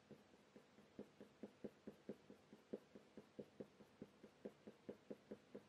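Faint Faber-Castell Polychromos coloured pencil flicking short strokes on hot-press watercolour paper: a steady run of light ticks, about four to five a second.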